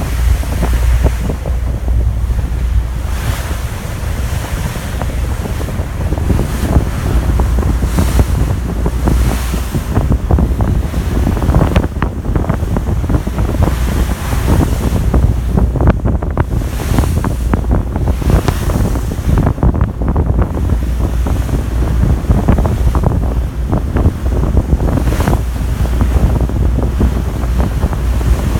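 Wind buffeting the microphone in irregular gusts on the open deck of a car ferry under way, over the rush of sea water along the hull and a steady low rumble from the ship.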